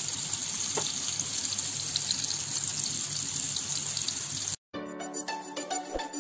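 Raw ground-beef burger patties frying in oil in a nonstick pan: a steady sizzle. It cuts off abruptly about four and a half seconds in, and music with plucked-sounding notes starts.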